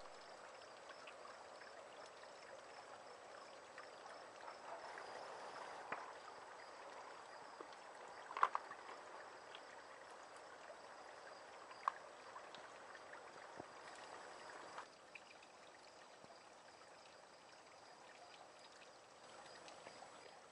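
Faint, steady hiss like running or trickling water, with a few sharp clicks, and slightly quieter in the last few seconds.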